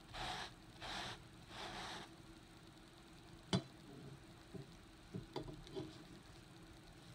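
Small scrub brush scrubbing foamy cleaner into a carpet in three even strokes, then stopping. A sharp click about halfway through, followed by a few faint ticks and knocks.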